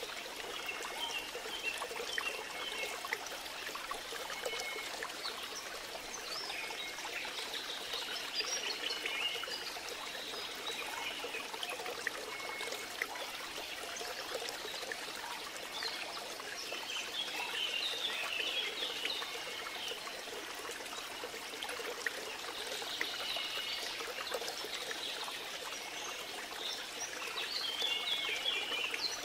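A steady trickling stream of flowing water, with small birds chirping in short twittering bursts every few seconds.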